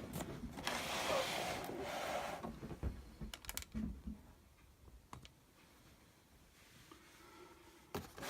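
Rustling of packaging being handled as the RC truck is taken out of its box, for about two seconds, followed by a few light clicks and knocks of handling, then quiet handling noise.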